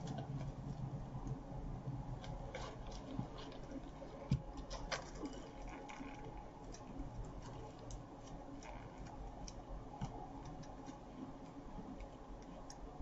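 Deco mesh being handled and pressed, giving scattered light crinkling clicks, with one louder knock about four seconds in.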